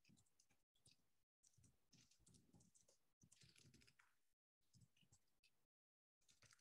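Faint computer keyboard typing and clicking, picked up by a video-call microphone that cuts out to complete silence between bursts.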